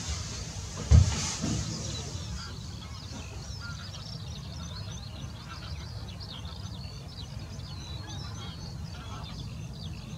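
Many waterbirds calling, a busy scatter of short high calls over a steady low rumble, with a single loud thump about a second in.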